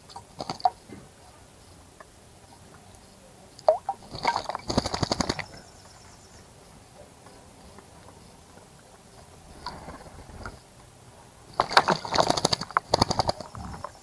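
A bird splashing in a bird bath, in two bouts of rapid, splattering wing-beats in the water: one about four seconds in and a longer one near the end, with a few single splashes early on.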